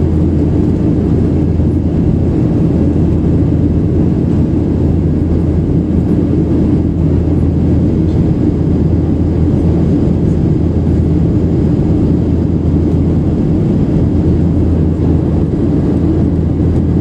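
Boeing 737-800 cabin noise heard from a window seat behind the wing: a steady, deep drone of the CFM56-7B turbofan engines and airflow over the fuselage, holding even throughout.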